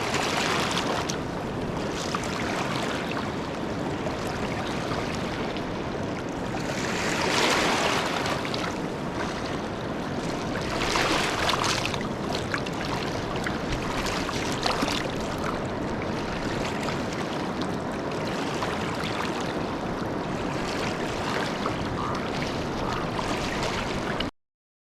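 Steady rushing of flowing river water, swelling louder twice, then cutting off suddenly near the end.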